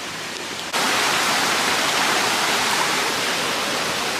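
Rushing water of a stream, a steady loud hiss that cuts in suddenly less than a second in, after a fainter hiss.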